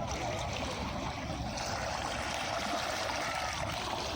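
Calm sea waves washing steadily onto a beach, an even rushing wash with no single break standing out.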